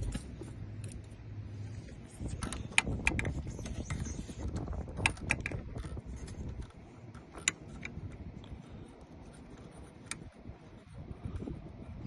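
Scattered sharp metallic clicks and light jangling from a locksmith's tools and keys being handled while opening a locked car.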